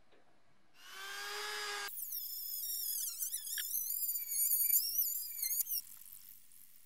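Hand-held rotary tool with a small abrasive bit sanding a steel wrench handle. A steady whir starts about a second in, then gives way to a higher whine that wavers in pitch as the bit works the metal, stopping suddenly near the end.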